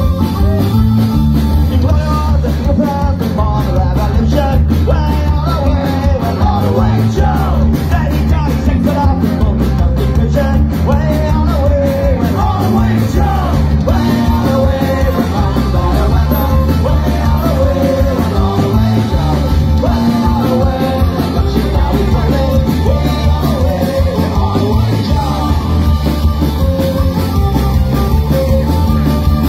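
Live folk-punk band playing loud, with a button accordion, electric guitars and drums, heard from within the crowd.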